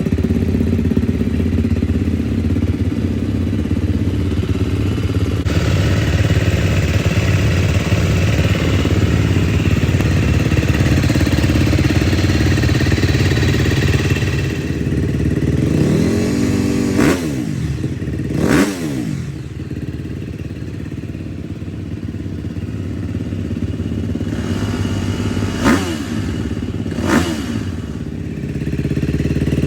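KTM 250 SX-F dirt bike's single-cylinder four-stroke engine idling steadily, likely through an FMF titanium full exhaust with a hole in its silencer that blows out the side. About halfway in it is blipped twice in quick revs and settles to a lower idle, then it is blipped twice more near the end.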